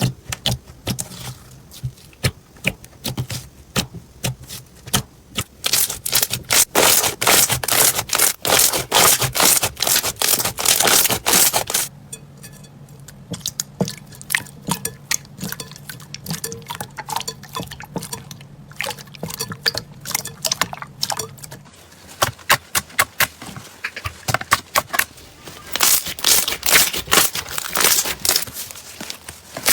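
Slime being played with, making rapid sticky clicks and crackling pops. The popping is densest in the middle of the first half and again near the end, with a calmer stretch of softer squelching between.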